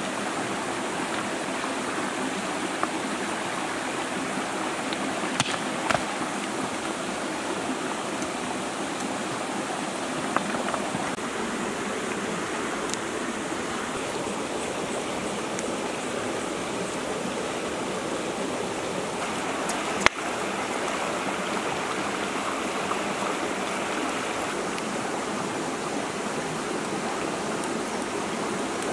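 Shallow rocky stream rushing steadily over stones, with a few sharp knocks, the loudest about two-thirds of the way in.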